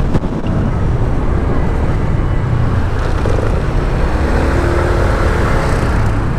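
A Honda SH125i scooter's single-cylinder engine running steadily on the move, mixed with wind and road noise and the sound of surrounding city traffic.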